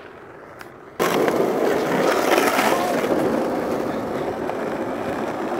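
Skateboard wheels rolling over rough asphalt close to the ground. A loud, steady rolling noise starts abruptly about a second in.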